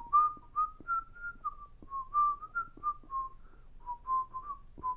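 A man whistling a short meandering tune under his breath, a string of brief notes that wander up and down in pitch. Faint clicks from a cardboard box being handled.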